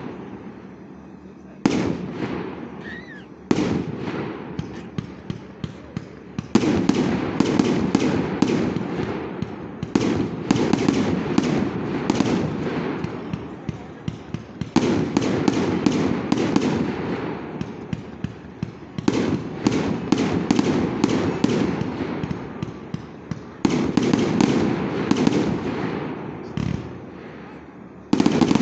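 Aerial firework shells bursting, with a heavy bang every few seconds. Each bang is followed by a fading, rumbling echo and rapid strings of sharp crackling pops.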